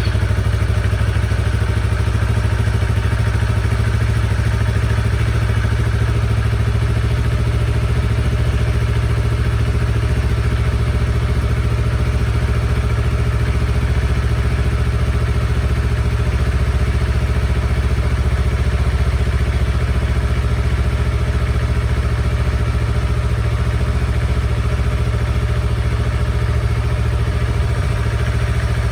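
2015 Yamaha R3's parallel-twin engine idling steadily through a freshly fitted aftermarket slip-on exhaust, just after start-up.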